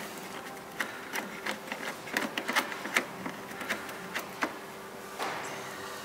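Small irregular clicks and taps of screws and a plastic display faceplate being handled against a fridge's metal front panel while the screws are started, with a faint steady hum underneath.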